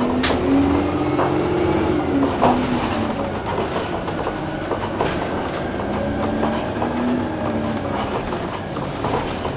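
Orion VII Next Generation low-floor hybrid bus in motion, heard from inside: its hybrid drive whine rises and falls in pitch twice, over a steady rumble with rattles and clicks from the cabin.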